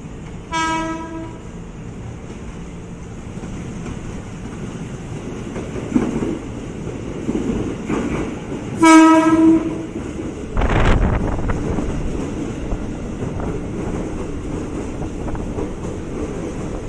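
KRL Commuter Line electric train sounding its horn as it approaches: a short blast about half a second in, then a longer, louder blast about nine seconds in. A sudden rushing noise follows, and then the rising rumble and clatter of the wheels as the train runs in alongside the platform.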